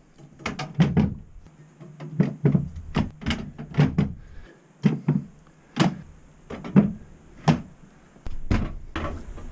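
Prismatic LiFePO4 battery cells being set one by one into an aluminium extrusion frame: a steady string of knocks and clunks, one or two a second.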